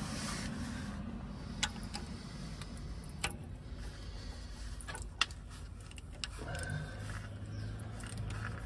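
A few scattered metallic clicks and clinks of a socket wrench and extension being handled and fitted onto the oil filter's centre bolt.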